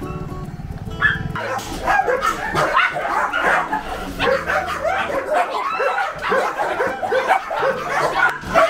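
Many kennelled shelter dogs barking and yelping at once in a dense, overlapping chorus, with some whimpering, starting about a second and a half in.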